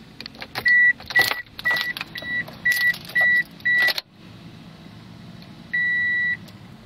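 A 2005 Toyota Corolla's dashboard warning chime beeps seven times, about twice a second, over clicks from the key being turned in the ignition. About four seconds in, the sound changes to the steady low hum of the car's 1.8-litre four-cylinder engine idling just after starting, with one longer beep.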